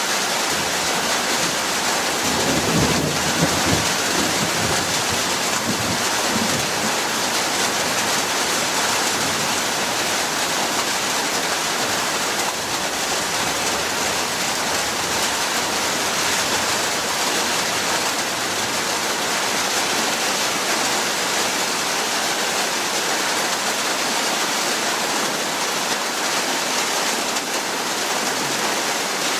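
Steady, heavy rain falling, with a low rumble of thunder about three seconds in that fades out over the next few seconds.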